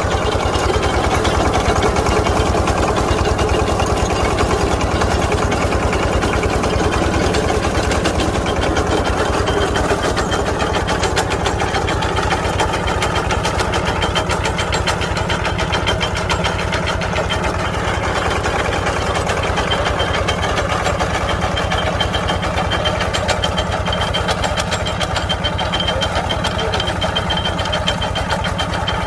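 Engine of a garlic and root-crop harvesting machine running steadily at an even speed, with a fast, regular firing pulse.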